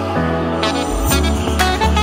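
Background music: an upbeat song with a bass line and a steady beat of about two beats a second.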